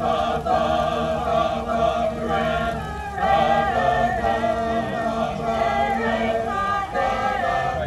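Mixed choir of men and women singing together in held, sustained chords that shift pitch every second or so.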